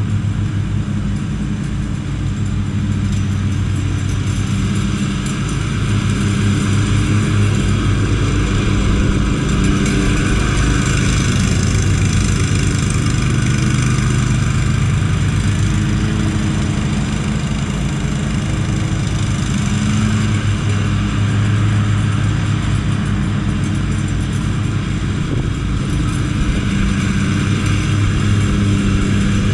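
Commercial riding lawn mower engines running steadily, a continuous engine hum that gets a little louder a few seconds in.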